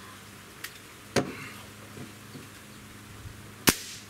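Walther Parrus .22 spring-piston break-barrel air rifle: a sharp clack about a second in as the barrel is snapped shut, then the shot near the end, a single sharp crack that is the loudest sound.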